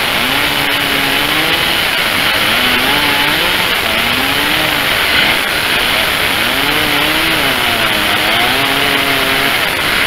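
Gas chainsaw running under load while ripping along the length of a large pine log. The engine pitch rises and falls over and over as the cut loads and eases the saw.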